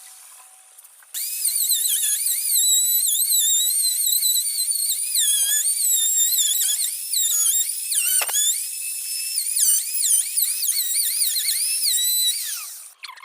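High-pitched electric power tool motor whining as it works wood, its pitch wavering and dipping under load. It starts abruptly about a second in and winds down near the end.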